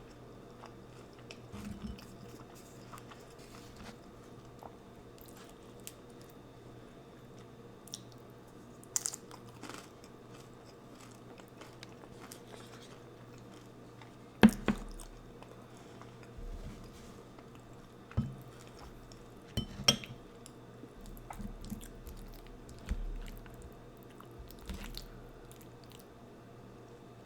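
Close-miked eating of a Chipotle chicken bowl with homemade tortilla chips: wet chewing and crunching, broken by scattered sharp clicks and knocks, the loudest about halfway through and another a few seconds later.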